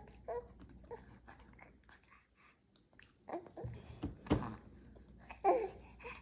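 A child chewing a bite of hard-boiled egg: soft, irregular wet mouth sounds and small clicks, with a short vocal sound near the end.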